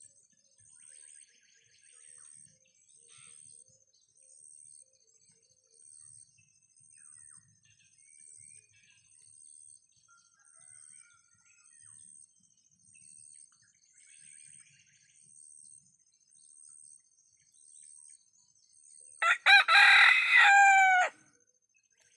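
A village-chicken (ayam kampung) rooster crows once, loudly, near the end, its call falling in pitch as it finishes. Before it there is only faint chirping repeating about once a second, with a few faint bird calls.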